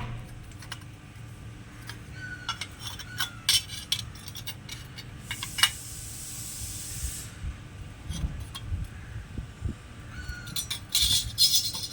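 Metal clinks and knocks as a thick steel wood-cutter blade is heated and bent into shape, with a hissing burst of about two seconds near the middle and a quick run of clicks near the end.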